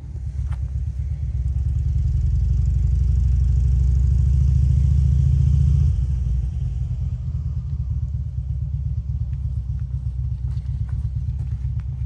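A motor vehicle's engine running close by: a low rumble that builds over the first two seconds, is loudest around five seconds in, then drops to a lower, steady level about six seconds in.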